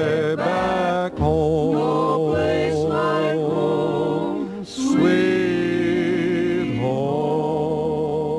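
Music: a vocal group singing the closing phrases of a song in wavering, vibrato-laden notes, settling about halfway through into a long held final chord.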